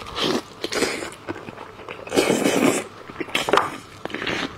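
Close-up eating sounds: biting into and chewing soft, stewed-tender braised beef rib meat, with wet mouth noises and clicks and a louder, longer wet sound about two seconds in.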